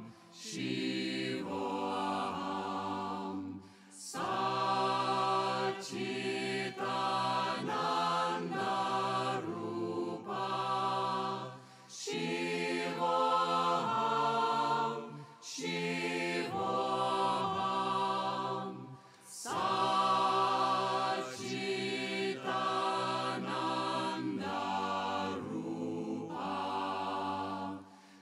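Choir singing a chant-like devotional song in long sustained phrases, with short breaks between phrases.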